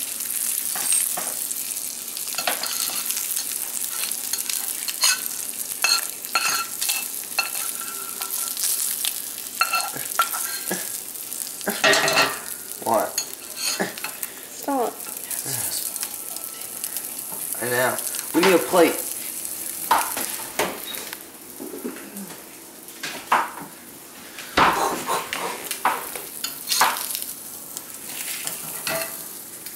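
Perch fillets sizzling in butter in a nonstick frying pan on a gas burner. A metal utensil now and then scrapes and taps against the pan as the fillets are turned, giving short clicks over the steady hiss.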